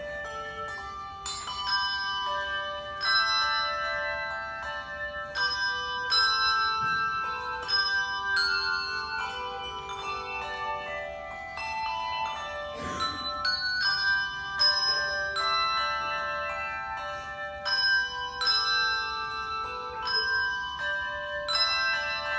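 A handbell choir playing a piece. Many bells are struck in chords and running melody lines, and their tones ring on and overlap between strikes.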